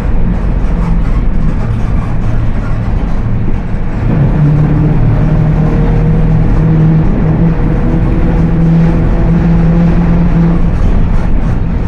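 Mercedes-Benz OF 1721 BlueTec 5 bus running, with a steady droning tone from the rear differential. The tone stands out from about four seconds in and fades near the end. This growling differential is the sign of a rear-axle problem.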